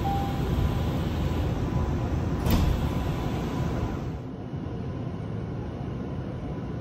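Commuter train car's sliding doors closing, with a single thud about two and a half seconds in, over a faint steady tone and the car's low rumble. Near the end only the quieter rumble of the stopped car remains.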